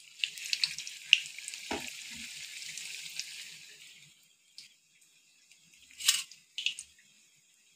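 Batter-coated boiled egg sizzling in hot oil in a kadai as it is dropped in, a steady hiss that fades out about four seconds in. A few faint clicks follow, with a sharper tick about six seconds in.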